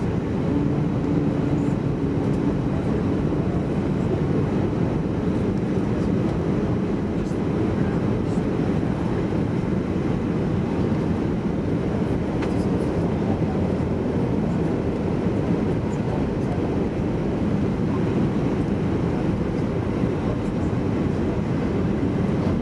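Steady cabin noise inside an Airbus A320 on approach: a low engine drone and rushing airflow, heard from a seat over the wing, with the flaps extended. It stays even throughout, with no change in engine power.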